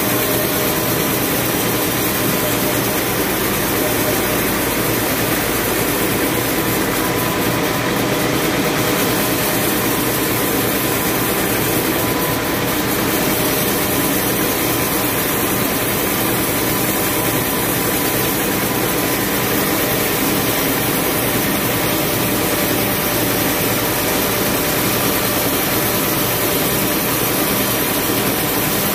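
Band sawmill running unloaded, a steady mechanical drone with a constant whine while the blade turns, before it enters the log.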